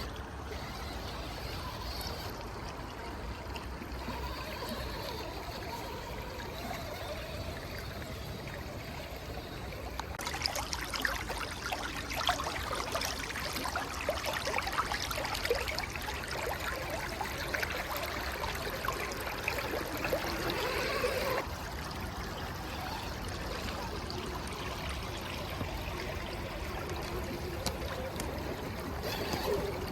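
Creek water running and trickling. About a third of the way in it gets suddenly louder and splashier with many small crackles, then drops back abruptly about two-thirds of the way through.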